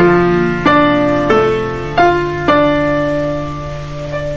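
Gentle piano music: notes struck about every half second to a second, the last one held and left to fade away.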